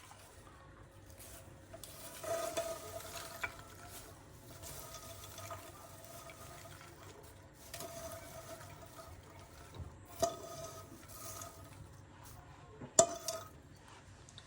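Popcorn being stirred and handled in a cooking pan, with a few sharp knocks of a utensil against the pan.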